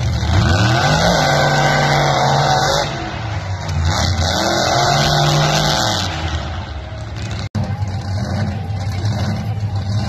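Monster truck engines revving hard as the trucks launch in a drag race. The pitch climbs steeply about half a second in and is held, drops briefly near three seconds and climbs again, then fades around six seconds. After a sudden cut, engines run on more steadily.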